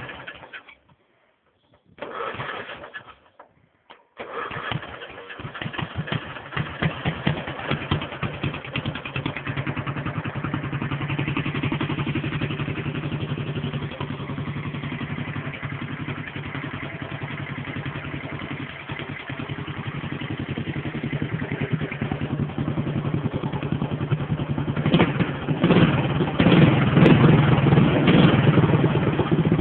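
Racing lawnmower engine, recently tuned, firing briefly twice and dying, then catching about four seconds in and running steadily with a fast pulsing beat. It is revved up harder near the end.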